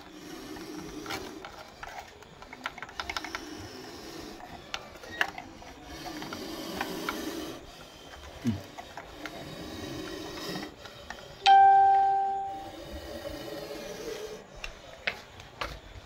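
A single bell-like chime strikes about two-thirds of the way through, loud and dying away over about a second, over faint scraping and a few scattered clicks.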